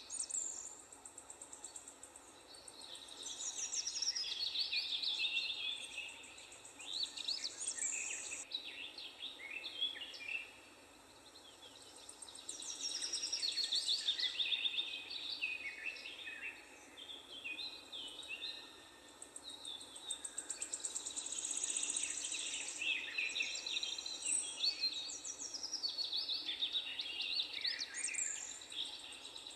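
Several birds singing and chirping at once, quick high notes sweeping up and down and overlapping, swelling and fading in waves.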